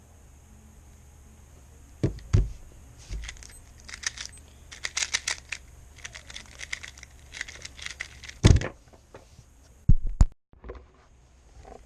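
Speed cube being turned rapidly: quick clicking and rattling of plastic layers for several seconds, with a few sharp knocks before and after.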